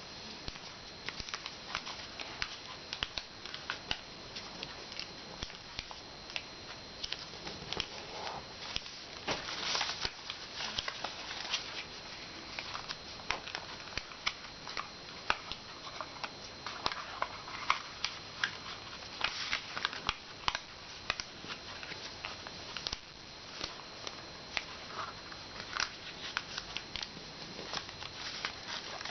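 A sheet of paper being folded and creased by hand: irregular rustles, crinkles and small taps of paper handling.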